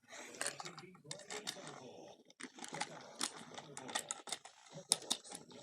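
Toy trains running on a wooden railway track: irregular clicking and clattering of wheels and couplings over the track joints, over a faint small-motor buzz.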